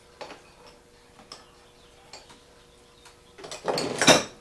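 Hand tools and metal parts being handled on the moped: a few light clicks and knocks about a second apart, then a louder scraping rattle lasting about a second near the end.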